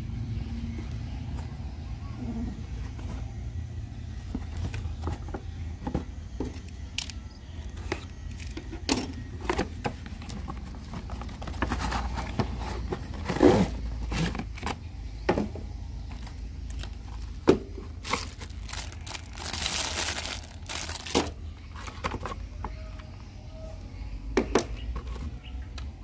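Cardboard toy box and plastic packaging being handled as a toy RC car is unboxed: scattered clicks and knocks of cardboard, and a stretch of plastic crinkling about two thirds of the way through, over a steady low rumble.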